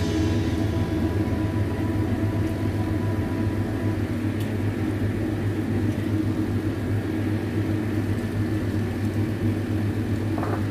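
A steady low hum that holds even throughout, with no breaks or beat, like a motor or fan running.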